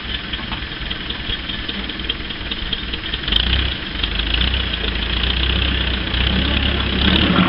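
Small crawler loader's engine running, getting louder and deeper from about three seconds in as the machine moves off.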